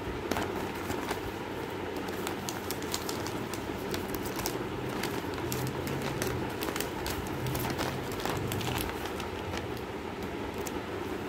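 Clear plastic curtain packaging crinkling and crackling as it is handled, in many quick irregular crackles, over a steady low background hum.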